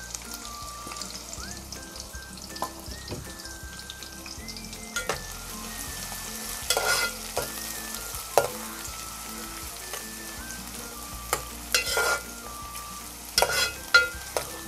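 Chopped onions and green chillies sizzling steadily in hot oil in a metal pot. A metal spatula stirs them, scraping and clinking against the pot several times, mostly in the second half.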